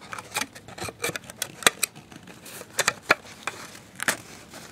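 Cardstock box being handled close to the microphone: irregular sharp clicks and light scrapes as fingers grip and move the paper.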